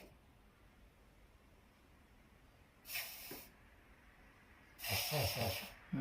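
A Papillon dog sneezing through its nose twice: a short sneeze about three seconds in, then a longer one near the end.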